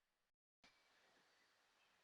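Near silence: faint background hiss, broken by a split second of dead silence at an edit cut about a third of a second in.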